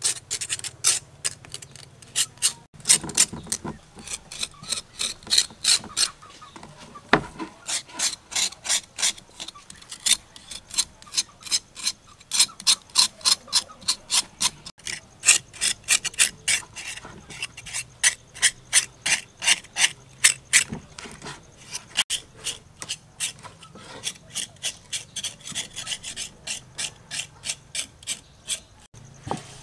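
Kitchen knife blade scraping over the charred skin of a fire-roasted pork leg, a rapid run of short rasping strokes, about three a second. The burnt outer layer is being scraped clean.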